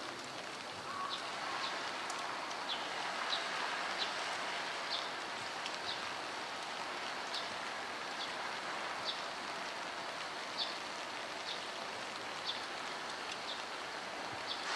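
Heavy rain falling, a steady hiss with short high ticks of drops landing about once a second.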